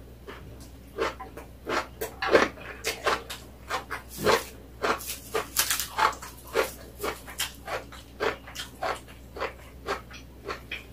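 Close-mic eating sounds: chewing and lip smacking in a quick, uneven series of short wet clicks, with sheets of dry roasted seaweed crackling as they are handled.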